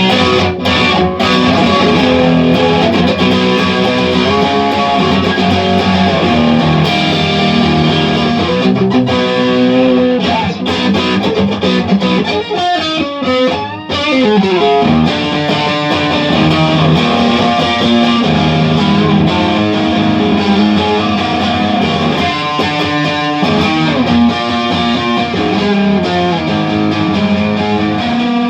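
Electric guitar played through distortion, riffing with a mix of chords and single notes. About halfway through, the pitch falls in a long downward slide before the riffing resumes.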